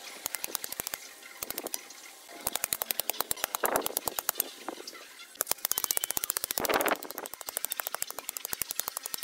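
Rapid runs of sharp clattering clicks, about ten a second, with two short bursts of scraping, as a shovel works wet crushed stone in a footing pit.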